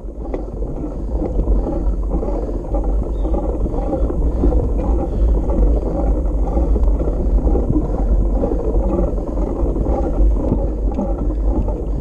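Steady rumble of wind buffeting an action camera's microphone, mixed with the noise of mountain bike tyres rolling over a dirt road.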